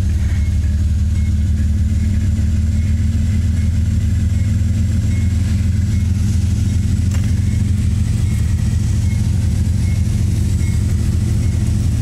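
Diesel freight locomotives working hard under heavy throttle while starting a train, a loud, steady deep rumble. A grade-crossing bell rings faintly in a steady rhythm.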